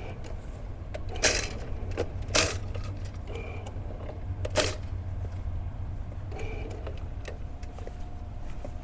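Electric drain-snake machine running in reverse: a steady low motor hum with the cable clanking and clicking, three sharp clanks standing out in the first five seconds.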